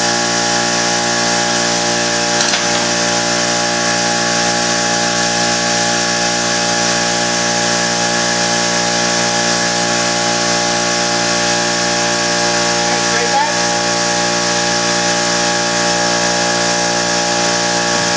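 A motor running steadily: a constant machine hum and whine made of several steady tones that doesn't change in pitch or loudness.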